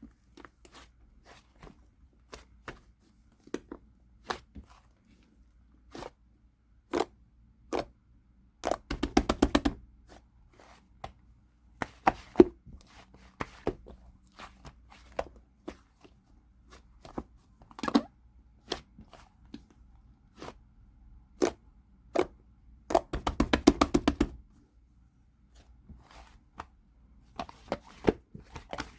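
Slime being squeezed and pressed by hand: scattered sticky clicks and pops, with two bursts of rapid popping crackles, each lasting about a second.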